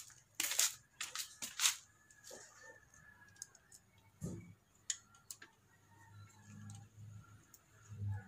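Hand-tool work on a cone air filter's clamp: several sharp clicks and rustles in the first two seconds, then scattered small ticks and scrapes as a screwdriver is brought to the clamp, with a single dull knock about four seconds in.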